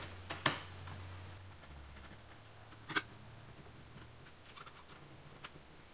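Small screwdriver clicking against screws in a laptop's plastic chassis as they are driven in: a few sharp clicks, the loudest about half a second in and another about three seconds in.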